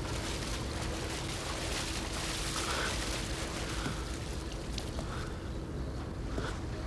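Harbour water splashing and sloshing as a man climbs out of it onto a wooden dock, over a steady hiss with a faint steady hum.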